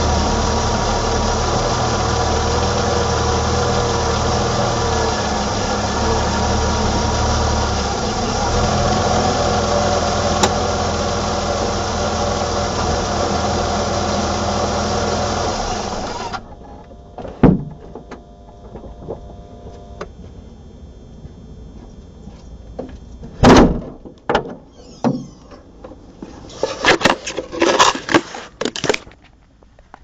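BMW E28 520i's M20 2.0-litre straight-six engine running steadily with a strong low rumble, cutting off suddenly a little past halfway. Afterwards come scattered knocks and scraping handling noises, with one loud thump a few seconds after the engine stops.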